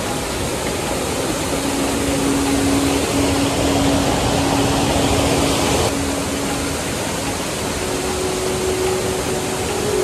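Devkund waterfall: water rushing steadily over rock ledges, heard close by. It grows louder for a few seconds in the middle and drops back suddenly about six seconds in.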